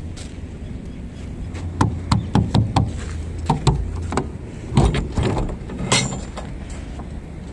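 A run of sharp knocks and clunks between about two and six seconds in, over a steady low hum.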